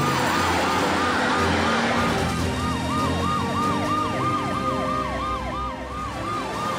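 Emergency-vehicle sirens from a police car, fire engine and ambulance sounding together: a fast yelp rising and falling about four times a second, with a slower sweeping siren over it midway.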